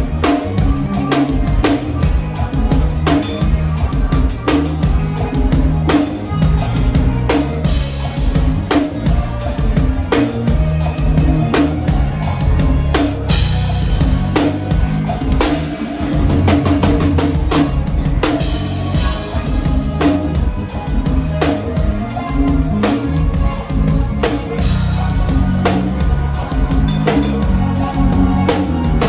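Forró band playing live on stage during a soundcheck, the drum kit heard close and prominent with steady kick and snare hits over sustained keyboard notes.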